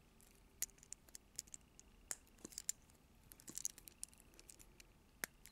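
Small plastic toy-trailer pieces clicking and tapping faintly in the hands as they are worked to snap together, with a sharper click near the end.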